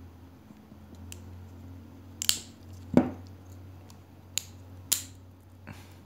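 Small keychain multitools being handled: a few sharp metallic clicks, with a heavier knock about three seconds in.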